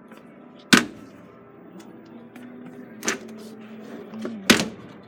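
Three sharp clacks from display washing machines being handled, about 0.7, 3 and 4.5 seconds in, the first and last loudest, over faint steady background music.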